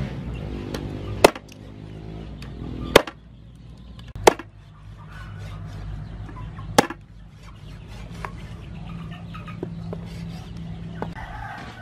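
A cleaver chopping bone-in raw chicken pieces on a round wooden chopping block: four hard strikes spaced one to two and a half seconds apart, with lighter taps between.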